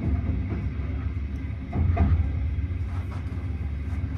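Intercity passenger coach rolling along the track, heard from inside the car. A steady low rumble of wheels on rail, with a few short clacks, swells louder for a moment about two seconds in.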